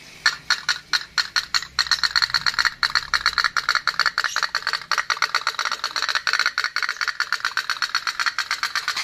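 Tin pop-pop (otok-otok) toy boat's steam engine putt-putting as the boat moves on the water: a few spaced pops at first, then a fast, even popping from about two seconds in.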